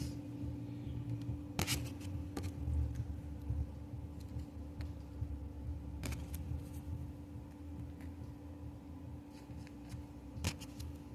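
Low, steady rumble of a street-cleaning truck running in the background, slowly easing off, with a steady hum. A few sharp clicks and crinkles of trading cards and foil booster packs being handled.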